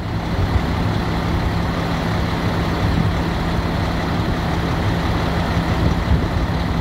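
Semi truck's diesel engine idling: a steady low drone with a constant hum.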